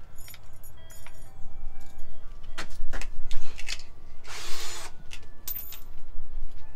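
Light metallic clinking and jangling, as of small hardware or tools being handled, with many short clicks. A brief hiss comes about four and a half seconds in, over a steady low rumble.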